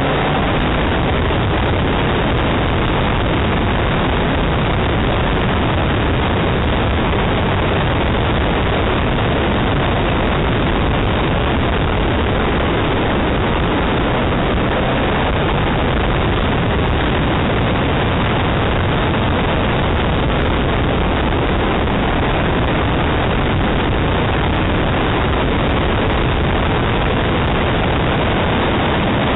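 Ford Escort RS2000 driving fast through a cone slalom, heard through a roof-mounted camera's microphone: a loud, steady rush of wind and car noise with no clear engine pitch.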